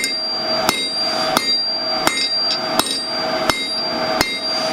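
A 3.5-pound rounding hammer striking hot 12 mm square steel bar on an anvil: seven even blows about 0.7 s apart, each followed by a ringing tone. These are half-on, half-off blows spreading the bar's taper.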